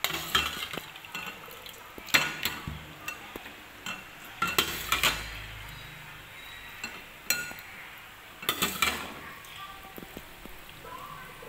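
A metal ladle clinking and scraping against a cooking pot and ceramic bowl in several short bursts as boiled frog pieces and broth are ladled into a serving bowl.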